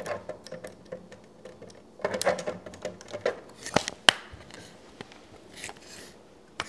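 Small 3D-printed plastic model pieces being handled and pressed together: a run of light plastic clicks and rattles, with the sharpest click a little after four seconds in.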